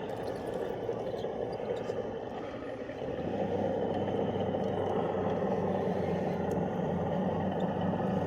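RC rock crawler driving: the electric motor and gearbox whir under a steady rushing noise. The whir grows stronger and steadier about three seconds in.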